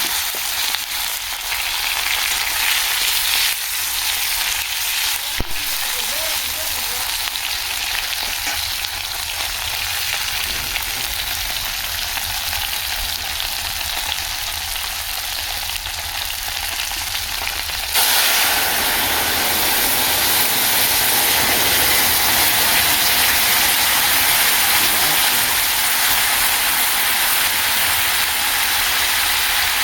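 Fish frying in hot oil in a kadai, a steady sizzling hiss, with one brief click about five seconds in. The hiss steps up suddenly and grows louder about 18 seconds in.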